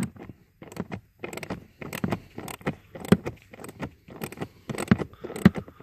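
Quarter-inch drive ratchet clicking as it loosens a bolt, a quick run of short clicks, several a second.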